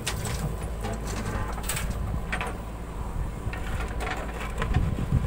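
JCB 3DX backhoe loader's diesel engine running steadily while the backhoe empties a bucket of sand and swings back down to dig. A few short, sharp sounds come over it, clearest about two seconds in.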